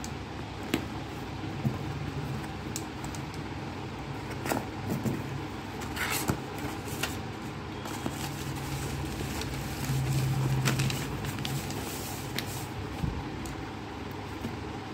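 Cardboard shipping carton and packing paper being handled and pulled apart, with scattered clicks and rustles, the strongest tear or crinkle about six seconds in. A low hum swells and fades in the second half.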